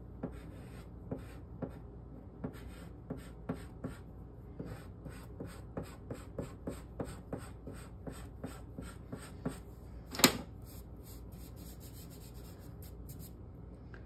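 Soft pastel stick dabbing and stroking on watercolour paper: a run of short scratchy strokes, about two or three a second, with one louder sharp knock about ten seconds in.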